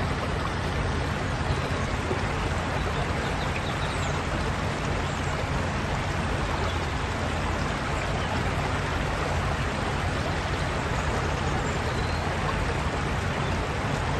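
Water from a burst water main rushing across a road surface in a steady, loud wash.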